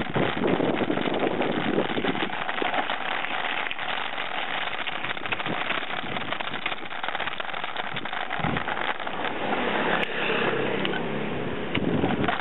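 Handlebar-mounted camera on a moving mountain bike: steady wind and road noise full of rapid crackles and rattles from the tyres and bike on the pavement.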